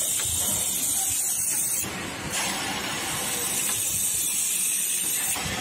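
Compressed air hissing from a grinding-wheel molding press in two long blasts, with a short break about two seconds in.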